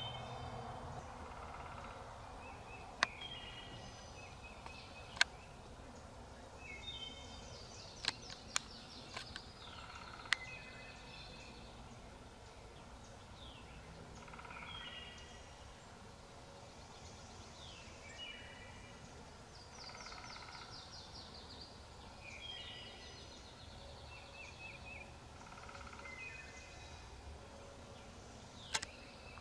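Songbirds singing in spring woods, faintly, in short repeated phrases and trills. About six sharp clicks or snaps are scattered through, most around the first third and one near the end.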